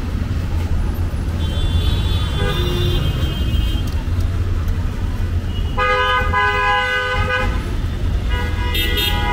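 A vehicle horn honks in street traffic: one long honk of about a second and a half some six seconds in, then a shorter honk near the end, over a steady low rumble of traffic.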